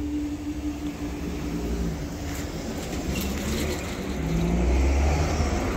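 A car driving over the level crossing, its engine and tyres loudest about four to five seconds in. A steady low hum fades out over the first couple of seconds.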